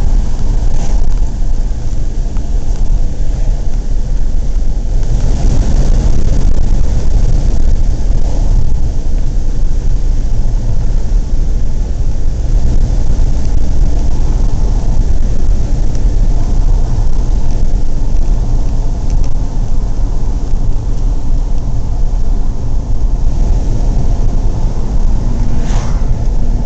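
Steady low rumble of road and engine noise inside the cabin of a moving VW diesel car.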